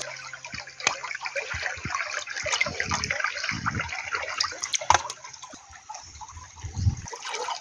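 Water splashing and trickling, with frequent small clicks and knocks and a few low thumps.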